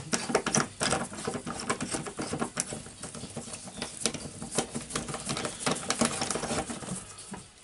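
Rapid, irregular clicking and rattling of a rotary hammer's side handle being fitted onto the front collar and twisted tight by hand, fading out near the end.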